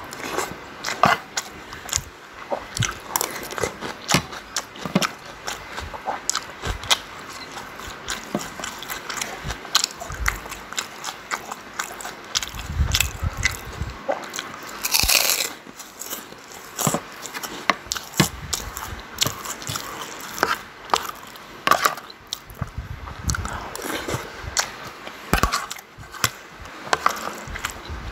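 Close-up mouth sounds of someone chewing rice and chicken: many small wet clicks and crunches. About halfway through comes one louder, crisp crunch as a fried cracker is bitten.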